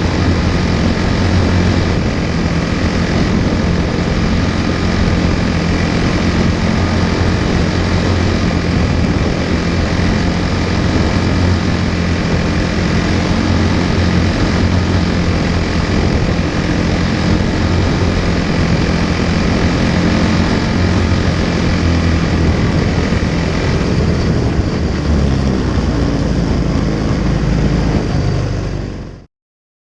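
Quarter midget's single-cylinder Briggs & Stratton Animal engine running steadily, heard from the car's onboard camera. Its low note shifts about 25 seconds in, and the sound cuts off suddenly near the end.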